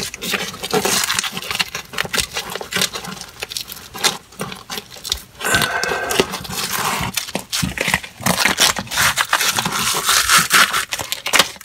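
A foil-backed adhesive repair patch crinkling and crackling as rubber-gloved hands press and smooth it around a cast iron drain pipe: a dense, irregular run of quick crackles and rustles.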